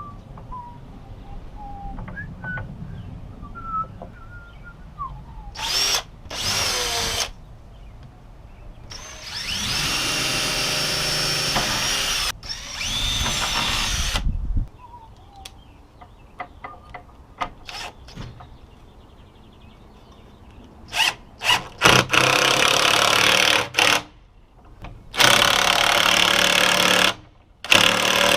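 Power drill pre-drilling holes for a gate latch, running in several bursts of one to three seconds with short trigger taps in between.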